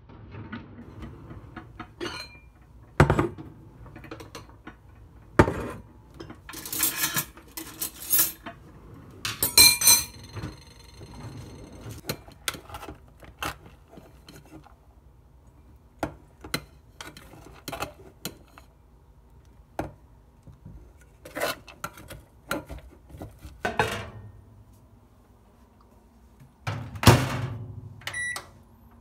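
Kitchenware being handled on a counter: a glass pot lid, ceramic bowls and metal cutlery make scattered knocks and clinks, with one ringing clink about ten seconds in. Near the end, the microwave oven's keypad gives a few short beeps as its buttons are pressed.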